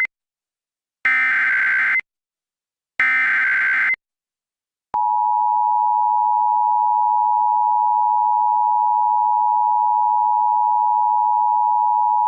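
Emergency Alert System SAME header: short data bursts of about a second each, a second apart, then about five seconds in the steady two-tone EAS attention signal starts and holds.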